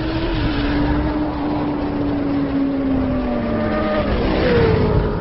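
A vehicle engine running, its pitch slowly sinking over a few seconds, then a shorter falling glide near the end.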